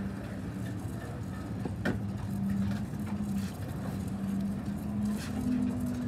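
Strong wind buffeting the microphone in a fluctuating low rumble, over a steady engine-like hum that comes and goes. A single sharp knock about two seconds in.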